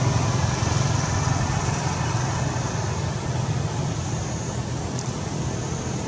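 Steady low rumble of distant road traffic with a hiss, easing off slightly.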